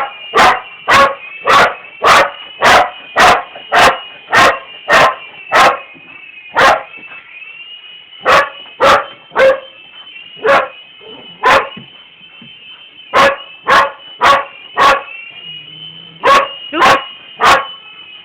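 A frightened dog barking at a remote-control helicopter: sharp barks about two a second, then in shorter runs with brief pauses. Underneath runs a steady high whine from the small helicopter.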